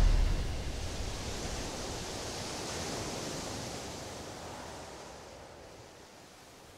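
Ending of a heavy rock song: an even, hiss-like wash of sound with no clear notes fades away over several seconds, swelling slightly about halfway through.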